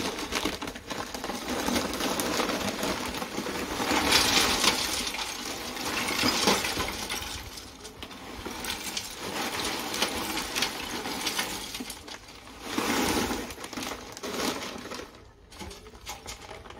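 Lumps of charcoal clinking and clattering in a mangal grill as it is loaded and lit, in several spells of scraping and clicking rattles.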